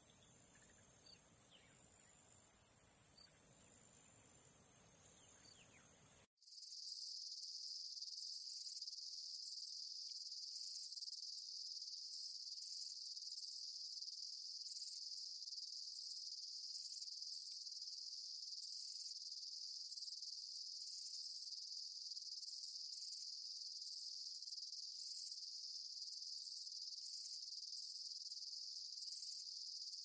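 Faint outdoor hiss for about six seconds, then a steady, high-pitched insect chorus cuts in abruptly and runs on, with a faint pulse about once a second.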